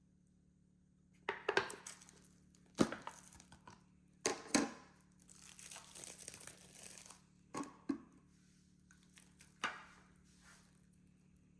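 Crinkling and rustling of handled material: several sharp crackles at irregular intervals, with a longer rustle in the middle.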